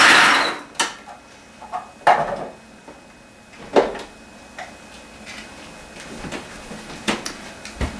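Food processor motor and blade running for one short pulse, chopping a chunky mix of seeds, dried fruit and cacao nibs, then stopping about half a second in. A few separate clicks and knocks of the clear plastic bowl and lid follow as the bowl is taken off the base and handled.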